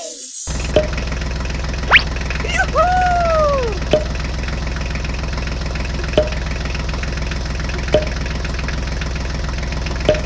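Tractor engine idling sound effect, a steady low drone starting about half a second in, with a short click every two seconds or so. About two seconds in comes a quick rising whistle, then a cartoon whistle tone that rises and falls.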